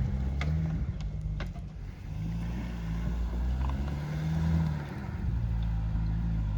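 Dacia Duster's 1.3 TCe turbocharged four-cylinder petrol engine pulling the car through mud, its revs rising and falling. A few sharp knocks come in the first second and a half.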